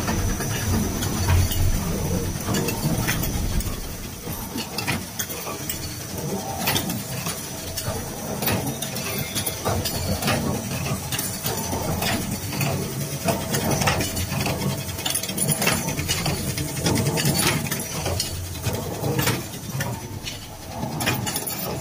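Automatic U-bolt thread-rolling and bending machines running: a steady machine hum with frequent short clicks and knocks. The low rumble eases off about four seconds in.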